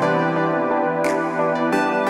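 Background music: sustained keyboard and synthesizer chords with soft cymbal swells about once a second.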